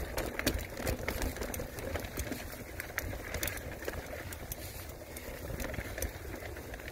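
Mountain bike rolling over dirt and slickrock: knobby tyres crunching on the ground, with irregular clicks and rattles from the bike jolting over the bumps above a steady low rumble.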